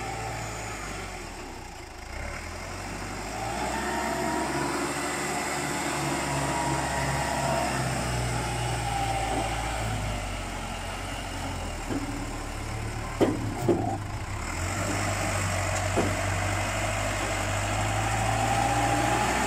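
Fermec 860 backhoe loader's turbo diesel engine running under load while the front bucket pushes into sand, with a whine that rises and falls. Past the middle come a few sharp knocks, the loudest two close together.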